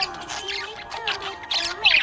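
Budgerigar chirping and chattering in quick high bursts, loudest near the end, over background music with a sliding melody line.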